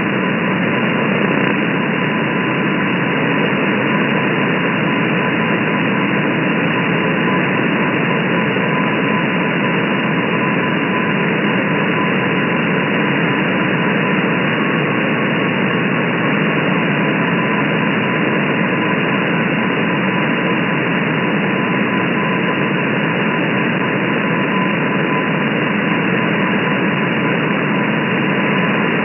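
Shortwave radio static from a software-defined receiver in upper-sideband mode: a steady band-limited hiss. Under it, a faint high tone from the M12 number station's Morse-code (CW) signal is just audible.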